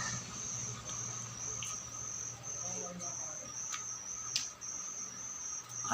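A cricket chirping in a high, evenly pulsing trill, over a steady low hum, with a few faint clicks.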